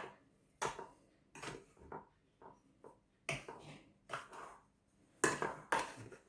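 A utensil knocking and scraping against a bowl as dry semolina, rice flour, salt and sugar are stirred together, in irregular separate strokes with the loudest a little after five seconds in.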